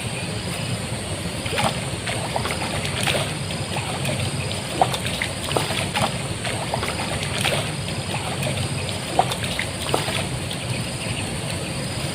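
River water trickling and splashing steadily, with scattered small sharp splashes or drips.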